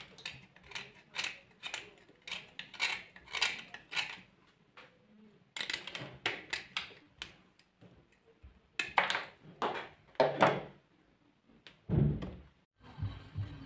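Clay being crumbled and broken apart by hand: runs of crisp crunching and cracking in three bursts, then one dull thud near the end.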